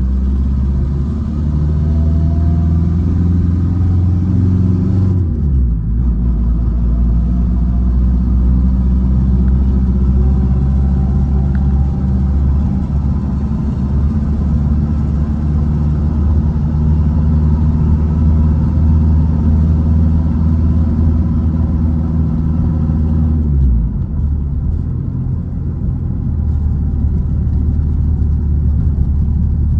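A 1968 Volkswagen Baja Bug's air-cooled flat-four engine running as the car drives, heard from inside the car. The engine note drops away sharply about five seconds in, then slides down again about six seconds before the end as the car slows.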